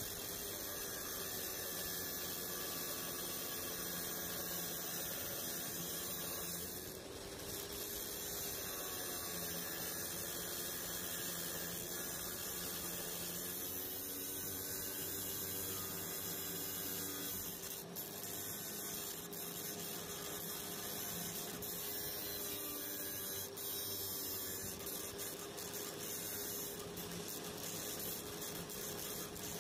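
Electric arc welding: a steady sizzling hiss with a few brief crackles and a faint steady hum, starting abruptly as the arc strikes.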